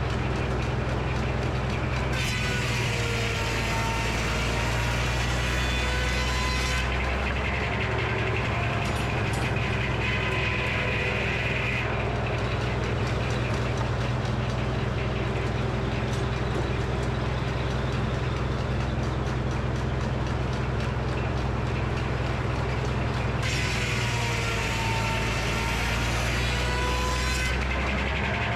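Frick sawmill running, its power unit humming steadily, while the circular head saw cuts through a black walnut log twice: a louder, higher whining hiss for about five seconds a couple of seconds in, and again for about four seconds near the end.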